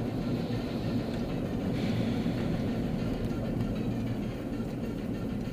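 Steady low road and engine rumble heard inside the cabin of a moving car, easing off slightly near the end.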